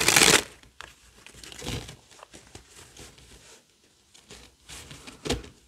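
A deck of tarot/oracle cards being shuffled by hand: a loud rush of cards riffling together at the start, then softer, irregular slides and flicks of cards, with one more sharp one near the end.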